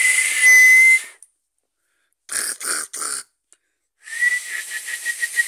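A man coughing and clearing his throat into his hand, close to the microphone, in three loud bursts. The first burst is about a second long, the second is three short coughs, and the last is longer. The first and last bursts carry a high whistling tone.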